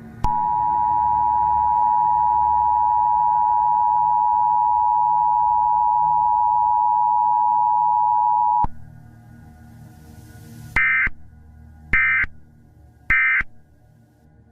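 Emergency Alert System attention signal: a steady two-tone alarm held for about eight seconds, then three short bursts of buzzing digital SAME data tones about a second apart. A low ambient music drone runs underneath.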